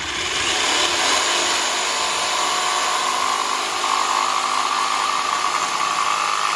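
Power tool cutting into the corner of a carbon fiber mirror housing: a steady, rough grinding noise with a high whine that grows stronger partway through and stops right at the end.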